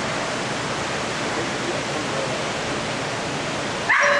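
Steady even hiss of background noise in an indoor arena recording. Near the end a sudden, louder held note starts and stays at one pitch.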